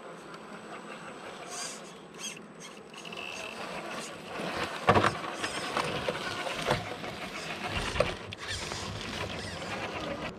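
Traxxas TRX-4 Defender RC crawler driving over loose rocks up close, its electric motor and geartrain whining while the tyres crunch and grind on stone. The sound grows louder in the second half, with a few sharp knocks as it climbs over rocks.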